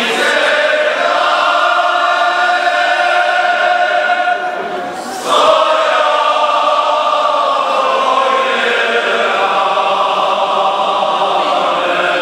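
Large men's choir singing a Moravian folk song in long held notes. The singing dips briefly about five seconds in, then comes back louder.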